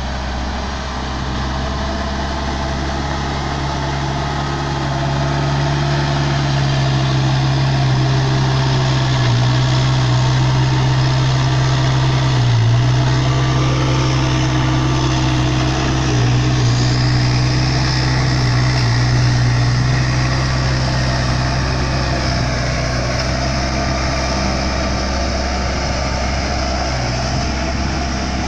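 Diesel engine of a Case backhoe loader running steadily with a strong low hum as the machine moves and spreads gravel, getting a little louder about five seconds in.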